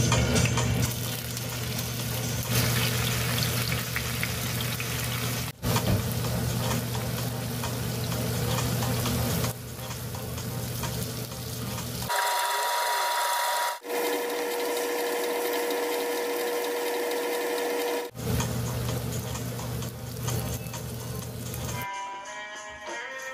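Tofu blocks frying in a generous layer of oil in a nonstick pan: a steady sizzle, broken off abruptly several times. Music comes in near the end.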